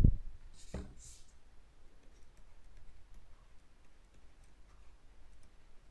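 Faint, irregular clicking and ticking from handwriting input at a computer while a word is written on screen. A soft knock and two short hisses come about a second in.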